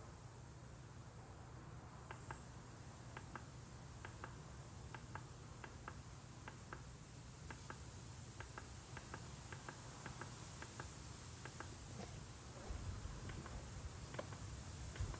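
Faint, irregular clicks of the instrument-cluster push buttons on a Suzuki Burgman 400, pressed over and over, about one or two a second, to step the oil-change interval setting, over a low steady hum. A low rumble comes in near the end.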